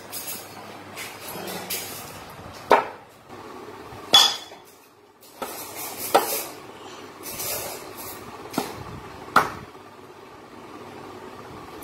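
Heavy cleaver chopping raw green mangoes on a wooden board: a few sharp, loud chops a second or two apart, with lighter knocks in between.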